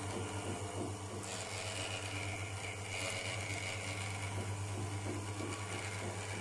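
Motor-driven rotary vane pump of an espresso machine running with a steady low hum while its brass bypass screw is turned inward to raise the brew pressure from about 5 toward 10 bar. A higher whine joins about a second in and holds.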